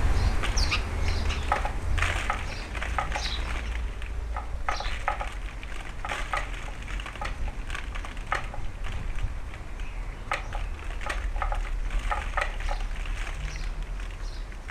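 Garden birds feeding: irregular light clicks and taps, a few a second, like beaks pecking at seed, with a few faint short chirps and a low steady rumble of wind on the microphone.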